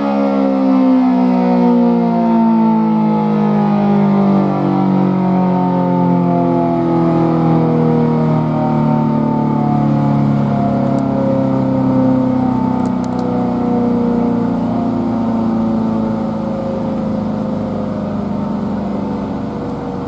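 Federal Signal SD10 tornado siren winding down: its chord of tones slides slowly and steadily lower in pitch while it stays loud, fading a little toward the end.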